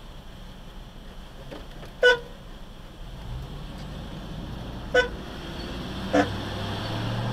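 Three short car-horn toots, about two, five and six seconds in, the first the loudest, over the low hum of vehicle engines in traffic that grows louder from about three seconds in as traffic moves off.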